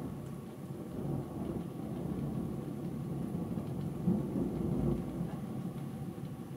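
Thunder rumbling, a low rolling sound that swells to its loudest about four seconds in and then eases off.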